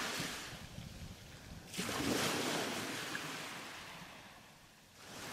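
Sea waves washing up on a shore: a surge about two seconds in that slowly dies away, and another coming in near the end.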